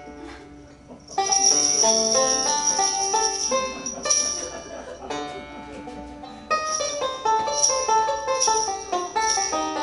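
Music of quick plucked-string notes over steadily jingling bells, quieter at first and rising in loudness just after a second in.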